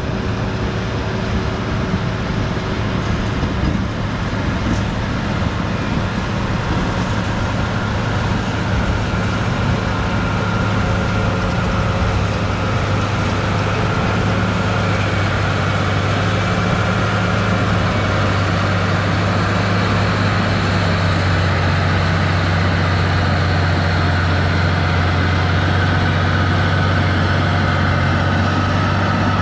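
Cat D6H Series II crawler dozer's six-cylinder Cat 3306 diesel running steadily as it pushes dirt with its blade, the engine note shifting slightly with load and growing a little louder as the machine comes closer near the end.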